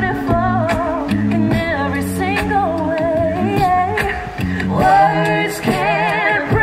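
A cappella vocal group of male and female voices singing through microphones: a low sung bass line holds steady notes under lead and harmony voices with a pronounced vibrato, and short clicks keep a regular beat.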